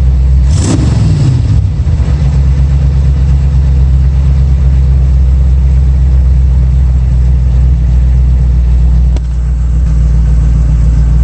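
1965 Ford Mustang engine idling steadily at operating temperature, running evenly without missing. About half a second in there is a brief burst of noise with a short falling tone.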